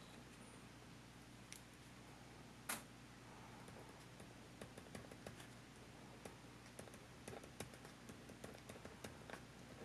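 Ballpoint pen writing on a postcard, quiet: light ticks and scratches of the pen tip on the card, coming thick and fast in the second half, with one sharper click a little under three seconds in.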